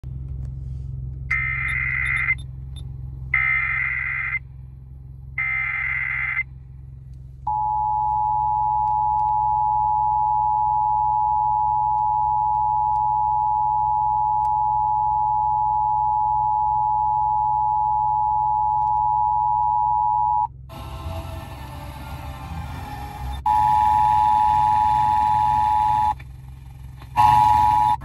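Emergency Alert System Required Monthly Test heard over a car's FM radio: three short bursts of SAME header data tones, then the two-tone attention signal held steady for about thirteen seconds. About twenty seconds in the sound breaks into hiss, and the same two-tone attention signal comes back twice near the end.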